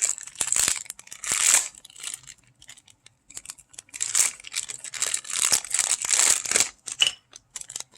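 Toy packaging being crinkled and torn open by hand, in irregular rustling bursts: one in the first couple of seconds and a longer one from about four to nearly seven seconds in, with a few small clicks between.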